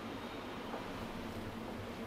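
Steady low machine hum with a faint hiss, even throughout with no distinct knocks or clicks.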